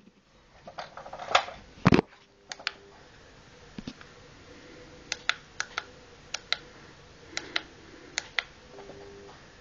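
Irregular sharp clicks and taps, a few a second, with a couple of louder knocks near the start, over a faint steady hum.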